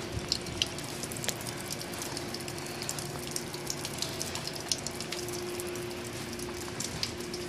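Meltwater from thawing snow running and dripping, a steady trickling hiss dotted with small drip ticks, over a steady low hum.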